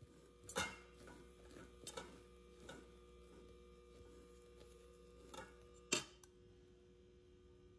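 Wire balloon whisk knocking and scraping against a stainless steel mixing bowl while folding cake batter into beaten egg whites: a handful of sharp clinks, the loudest about half a second in and just before six seconds, over a steady hum.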